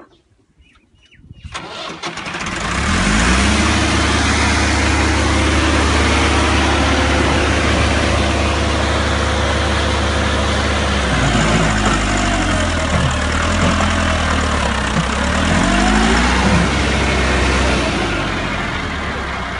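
Massey Ferguson 375's four-cylinder diesel engine running hard under heavy load, its pitch dipping and climbing back a few times in the second half as it lugs against the bogged-down rear wheels. The sound builds up quickly after a short quiet start.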